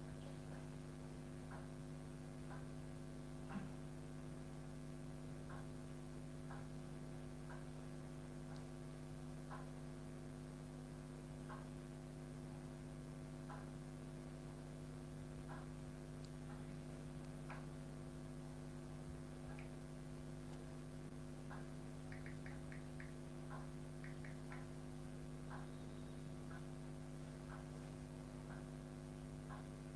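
Faint steady electrical mains hum, with a soft tick about once a second and a brief run of quick clicks about two-thirds of the way through.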